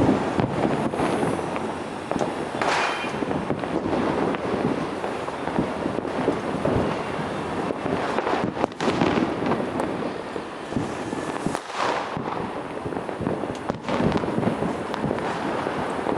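Fireworks and firecrackers going off without a break: a dense, continuous crackle of bangs, with louder bursts now and then.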